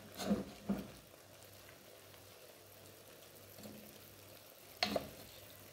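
Wooden spoon stirring chickpeas, meat and spices in a cooking pot, with a few short knocks against the pot, two close together near the end, over a faint steady background.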